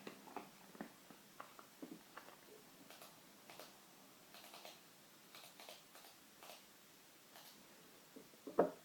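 A Brittany dog sniffing, faint short sniffs coming in loose clusters, with one brief louder sound near the end.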